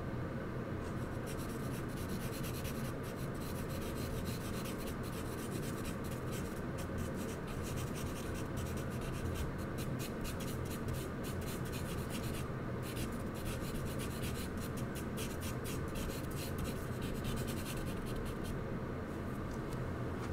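Charcoal scratching on drawing paper in quick, dense strokes, starting about a second in, with a short pause past the middle, and stopping near the end. A steady low hum runs underneath.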